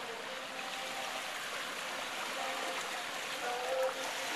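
Small waves washing steadily onto a sandy shore.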